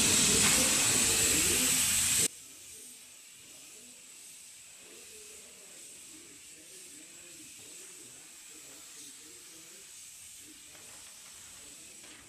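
Gravity-feed air spray gun spraying primer onto a truck panel: a loud, steady hiss of compressed air and atomised paint that cuts off suddenly about two seconds in. After it only faint background noise remains.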